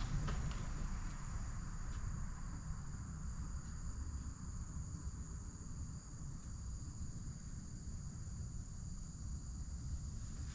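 Insects chirping in a steady high-pitched chorus, over a low rumble.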